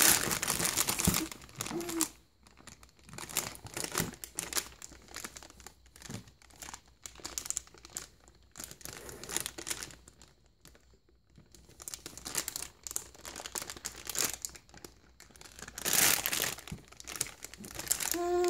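Crinkling of a metallized foil bag shaken and crumpled in a baby's hands, in irregular crackly bursts. It thins out and goes quieter for a while midway, then picks up louder again near the end.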